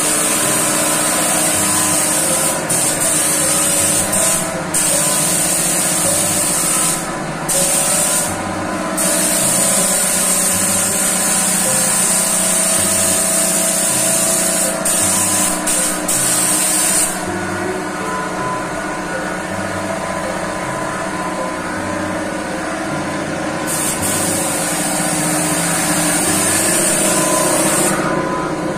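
Compressed-air paint spray gun hissing steadily while spraying car paint, cutting out briefly a few times as the trigger is released and falling away for several seconds past the middle. A steady hum runs underneath.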